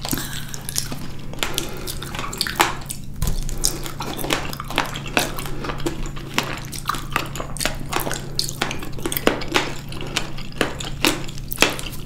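Close-miked wet eating sounds from chewing ripe blackberries: irregular sharp squelches and mouth clicks, several a second, over a faint steady low hum.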